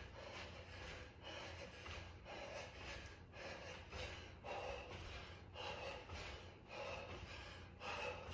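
A man breathing hard and rhythmically through jumping lunges, with a puff of breath a little more than once a second.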